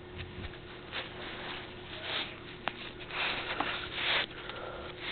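Close handling noise as a hand reaches in to pick up small fishing tackle: irregular rustling, louder for about a second near the end, with one sharp click partway through, over a faint steady hum.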